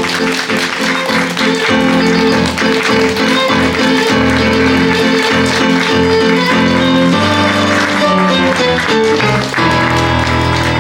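Live musical band playing an instrumental curtain-call tune with a quick run of plucked string notes, over audience applause.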